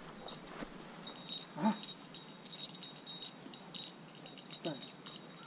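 Faint, irregular tinkling of a small bell, like a hunting dog's collar bell, while the dog quests. Two short falling low sounds also come through, the louder one about a second and a half in and another near the end.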